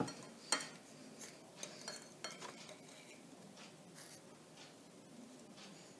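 A run of light clicks and taps from small objects being handled, the loudest right at the start and about half a second in, thinning out and stopping after about three seconds, leaving faint room tone.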